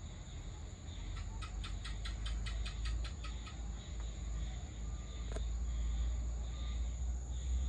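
Dusk outdoor ambience: a steady high-pitched drone of crickets over a low steady rumble. About a second in, a quick run of about a dozen short chirps at roughly six a second lasts two seconds, and a single sharp click comes near the middle.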